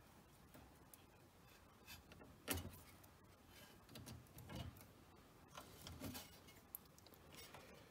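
Faint handling noises from fingers working parts loose on a vacuum-tube TV's metal chassis: small clicks and rubs, with one sharper click about two and a half seconds in.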